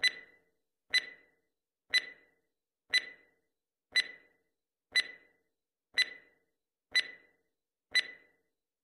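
A countdown-timer tick sound effect: a sharp, bright click once a second, marking off the seconds of the countdown.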